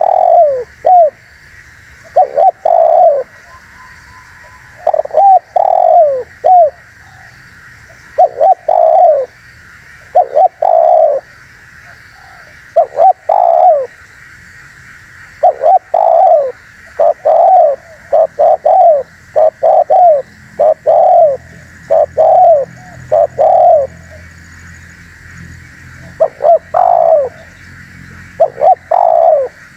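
Spotted dove (terkukur) cooing over and over, in short phrases of a few falling coos each, one phrase every second or two, over a steady faint high hiss.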